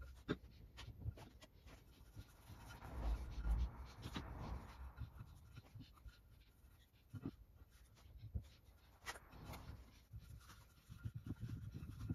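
Paintbrush spreading finishing oil over an oak sign: faint, irregular scratchy swishes of bristles on the wood, with a few light clicks and knocks.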